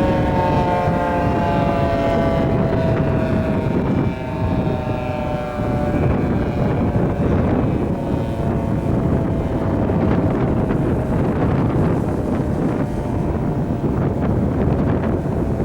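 Federal Signal 2T22 dual-tone tornado siren winding down at the end of a test, its chord slowly falling in pitch and fading over the first few seconds, with a faint tone lingering after. Heavy wind buffets the microphone and is the loudest sound once the siren fades.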